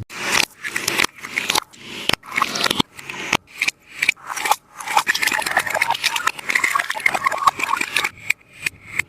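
Taba squishy toy being squeezed and handled, giving a run of short crackling, sticky squeezes several times a second, densest in the middle stretch.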